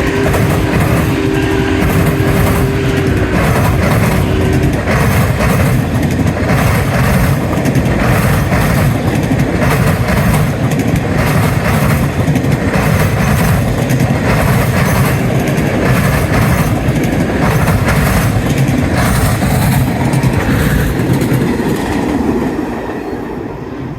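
Union Pacific Big Boy No. 4014 steam locomotive passing close by. Its steam whistle sounds a steady chord that cuts off about four and a half seconds in. The train then rolls on with a heavy rumble and a rhythmic clatter of about one beat a second, fading near the end.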